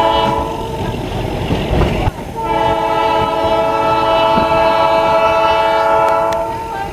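Train whistle sounding a short blast, then a long steady chord-like blast from about two seconds in that lasts four to five seconds, over the low rumble of the moving train.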